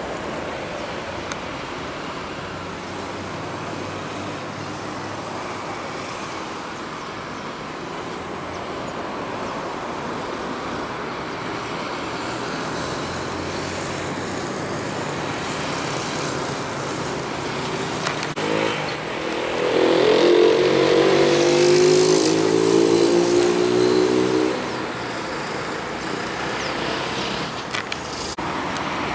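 Jet engines of an Airbus airliner at takeoff power during its takeoff and climb, a steady rushing rumble. From about 19 to 24 seconds a louder droning engine sound with a steady pitch rises over it, then cuts back.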